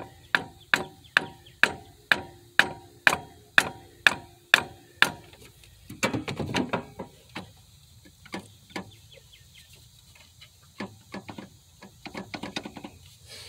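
Rubber hammer striking a wooden board held against a stuck alternator, about eleven sharp knocks at roughly two a second, tapping the alternator into its mount. The blows stop about five seconds in, followed by handling noise and light clicks as the alternator is worked by hand.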